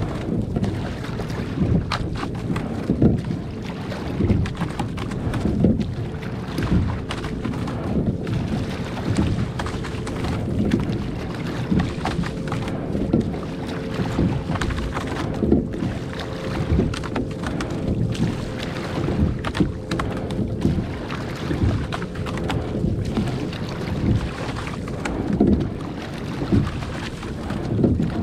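Rowing boat under way: oars pulling through the water in a steady stroke about every two and a half seconds, each stroke swelling with a rush of water, with wind on the microphone.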